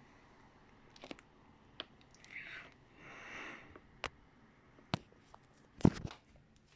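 Handling noise from a phone being moved: scattered sharp clicks and two brief soft rustles, then a loud knock just before six seconds as the camera swings away.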